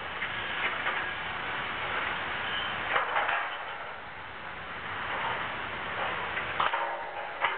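Demolition machinery running steadily with several sharp metal clanks and knocks as a 10-ton overhead crane is pulled down by cable, with a brief pitched squeal near the end.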